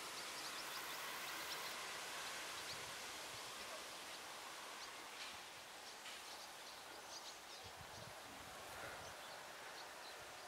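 Quiet outdoor ambience: a steady faint hiss with scattered short, high chirps.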